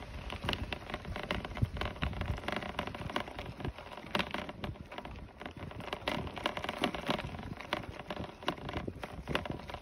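Bicycle riding along a dirt and gravel trail: the tyres crunch over the surface, with a dense, uneven run of clicks and rattles from the bike.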